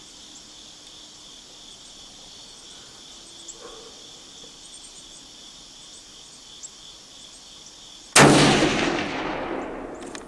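Steady insect chirring, then about eight seconds in a single gunshot at a whitetail buck. Its report echoes away over about two seconds.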